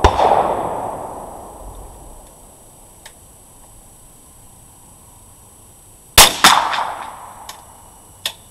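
.22 rimfire rifle shots, each followed by about a second of echoing ring: one at the very start, two about a third of a second apart some six seconds in, and a shorter crack near the end.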